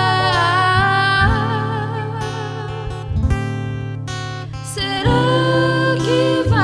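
Music: a slow sung ballad over acoustic guitar. The voice holds a wavering note at the start, drops out for a short instrumental passage in the middle, and comes back in about five seconds in.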